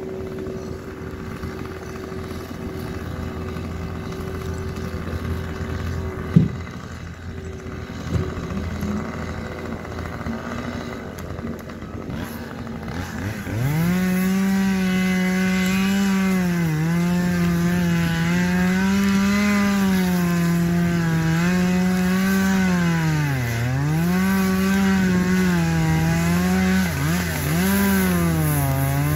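Chainsaw in a tree revving up about halfway through and running at high speed, its pitch dipping again and again as it bogs in the cut. Before it, a quieter steady hum with a single sharp knock.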